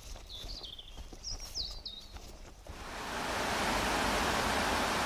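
Birds chirping in short calls, then about three seconds in a steady rush of water pouring into a bellmouth reservoir overflow spillway rises and takes over as the loudest sound.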